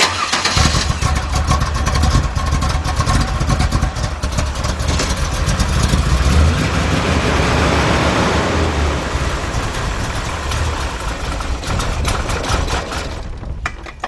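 A 1974 Chevy Corvette's carbureted 350 small-block V8 starts at once and runs steadily for about thirteen seconds. It falls away sharply shortly before the end.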